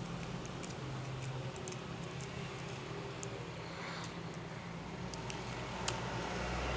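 Hand stirring and kneading a runny glue-based slime mix, with small sticky clicks and squelches, over a low steady hum.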